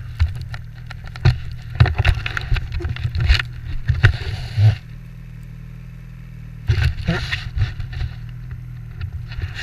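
Ski-Doo 800 two-stroke snowmobile running through deep snow drifts, a steady low drone under two spells of rough rushing noise and knocks as the sled bucks over the drifts, the second spell shorter and starting partway through. Wind and snow buffet the camera's microphone.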